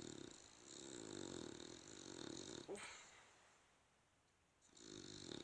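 Bulldog snoring in its sleep: a long snore breath with a hissing whistle on top, a short click, then about two seconds of quiet before the next snore starts near the end.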